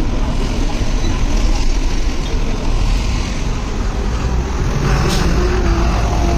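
Steady road traffic noise with a heavy low rumble, and one brief sharp sound about five seconds in.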